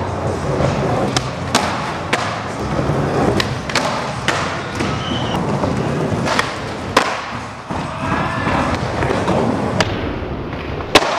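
Skateboard wheels rolling over wooden ramps, broken by a string of sharp clacks and thumps as boards pop, land and strike the surface. The loudest impact comes near the end.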